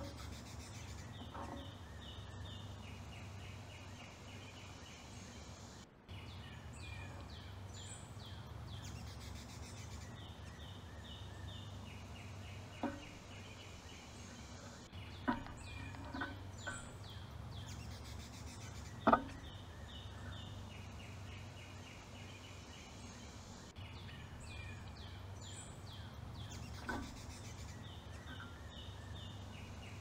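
A songbird outdoors singing a repeated phrase of quick high notes, several times over, above a steady low background hum. Now and then a sharp knock sounds as birds land on and leave the metal feeder perch, the loudest about halfway through.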